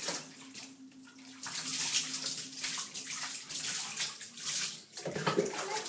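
Water sloshing and splashing in a bathtub as a small child moves and plays in it, in irregular surges with short quieter gaps.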